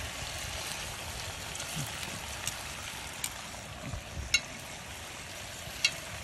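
Pork and vegetables sizzling steadily in an aluminium pot over a campfire, with a few sharp clicks of metal tongs against the pot as the food is turned.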